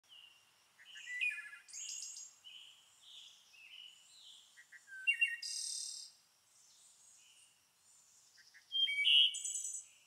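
Small songbirds chirping and twittering: short high-pitched calls in several bursts, loudest about a second in, about five seconds in and near the end.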